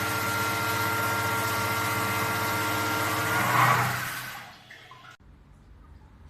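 Water running hard with a steady mechanical hum under it, swelling briefly and then dying away and cutting off about five seconds in, as the flow is shut off.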